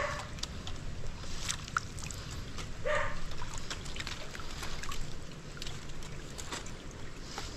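Landing net sloshing through shallow water and dripping as it is scooped and lifted, with scattered light clicks and knocks.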